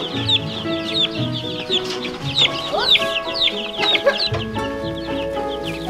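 A brooder full of baby ducklings peeping: many short, high chirps, each falling in pitch, overlapping several to the second. Background music with long held notes plays underneath.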